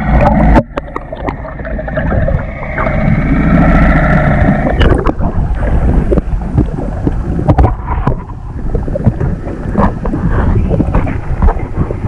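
Muffled underwater sound with a steady hum for about the first five seconds, then splashing and streaming water with repeated knocks as a dripping lobster pot is hauled over a boat's gunwale, with wind on the microphone.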